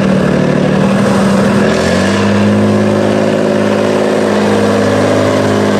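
Tatra 813 8x8 truck's diesel engine working hard as the truck climbs out of a steep mud pit. Its revs rise about two seconds in and then hold steady under load.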